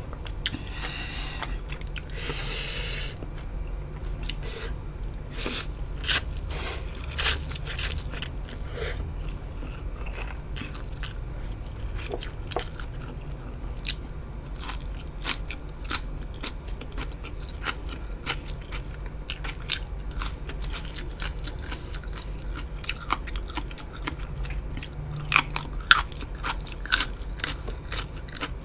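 Close-miked mukbang eating: biting and chewing crunchy food, with many sharp crunches and mouth clicks. There is a brief hiss about two seconds in and a denser run of crunches near the end.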